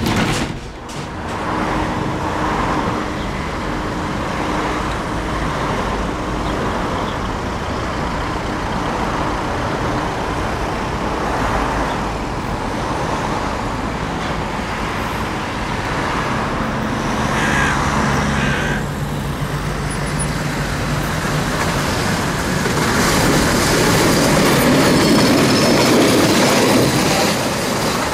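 Tram running along the track: a steady rumble of wheels on rails, with a low hum coming in past the middle and the noise growing louder near the end.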